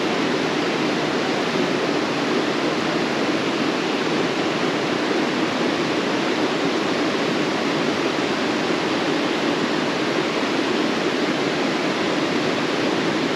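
Steady rush of a mountain trout creek running over riffles and a small cascade, an even, unbroken sound.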